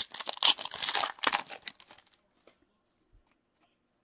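Foil wrapper of a hockey card pack being torn open and crinkled by hand, stopping about two seconds in.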